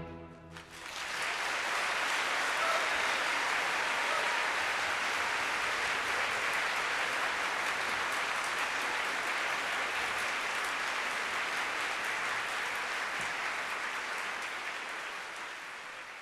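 The last orchestral chord stops and its echo dies away in the hall. About a second in, an audience breaks into applause, which holds steady and fades out near the end.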